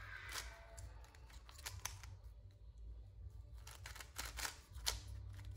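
Plastic 3x3 puzzle cube being scrambled by hand: scattered faint clicks of its layers turning, a few close together near the end, over a low steady hum.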